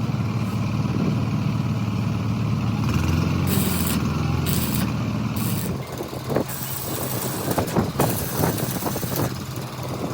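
A large engine running steadily with a low drone that drops in level about six seconds in, followed by a run of sharp metallic clicks and knocks.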